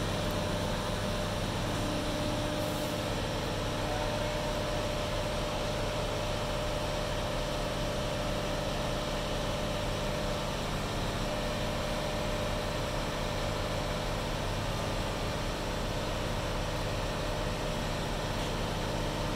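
Mobile crane's diesel engine running steadily while it holds a sailboat's hull aloft in lifting slings, a constant low drone.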